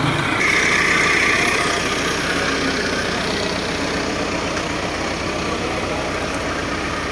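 Farm tractor diesel engines running steadily at idle. A brief hiss starts about half a second in and lasts about a second.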